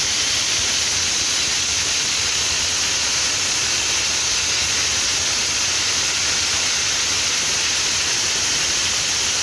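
Rolls-Royce AE 2100-A gas turbine, converted to burn hydrogen, running steadily on a ground test rig: a loud, even, hissing rush with no change in pitch.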